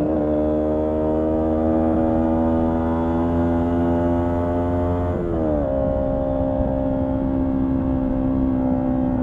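Honda CB125T motorcycle engine, its air cleaner and silencer removed, running steadily under load on the move. About five seconds in, the engine pitch briefly sweeps and settles back to a steady note.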